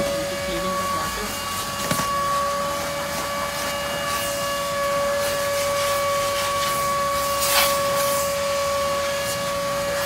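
Vacuum cleaner running with a steady whine, its hose sucking at the car's floor carpet and pedal area. There is a brief louder hiss about seven and a half seconds in.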